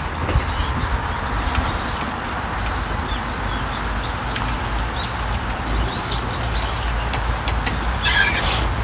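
Light rain falling on pond water: a steady hiss over a low rumble, with small birds chirping now and then. A short rustling burst near the end.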